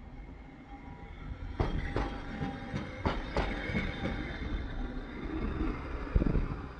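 Hankai Tramway Mo 601-type streetcar no. 606 passing close by and pulling away, its wheels clacking sharply over rail joints and points several times between about one and a half and three and a half seconds in, with a rumble and some wheel squeal. A heavier thump comes near the end.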